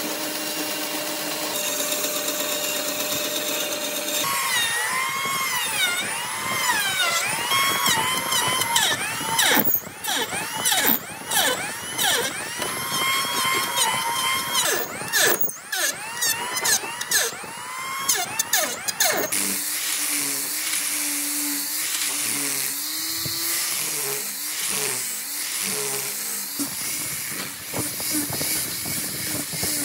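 Band saw running through a thick wooden block, then a Makita electric hand planer shaving the edge of a round wooden blank, its motor pitch dipping and recovering under load with each pass. About two-thirds of the way through it changes to an angle grinder with a sanding disc grinding the curved edge, a steady whine.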